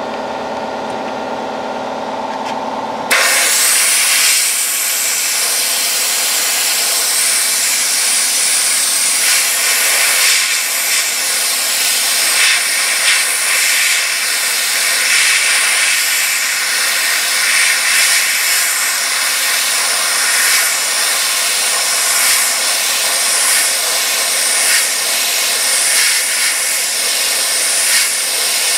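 Handheld sandblasting gun blasting abrasive media onto a rusty fender flange. About three seconds in, a steady lower hum gives way abruptly to a loud, continuous hiss of air and grit, which holds with small flickers.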